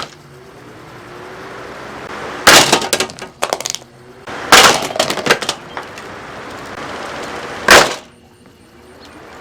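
A Lasko box fan being smashed: three loud blows about two seconds apart, each followed by crackling and clattering of breaking plastic, with a steady noise between the blows.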